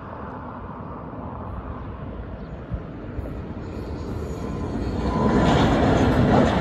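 Amtrak passenger train approaching and crossing a railway overpass. Its rumble builds from about four seconds in and is loudest near the end.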